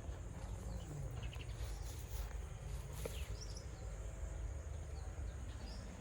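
Outdoor forest ambience: a steady low rumble under a constant high insect drone, with a few faint, scattered bird chirps.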